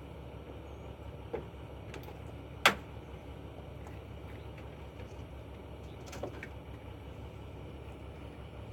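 Hand work on a pickup truck's headlamp assembly: one sharp click about two and a half seconds in and two fainter clicks, over a steady low rumble.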